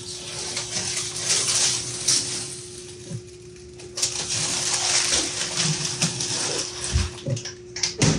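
Scraping and rubbing as plywood cabinet parts are handled and fitted, in several stretches, with a couple of dull knocks near the end, over a steady hum.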